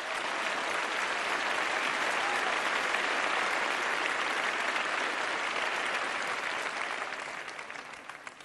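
A crowd applauding, rising at once and then dying away over the last second or two.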